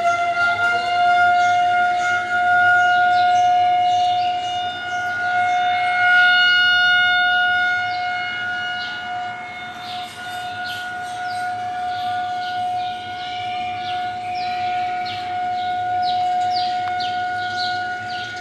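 Warning siren winding up and then holding one steady pitch, with birds chirping faintly behind it.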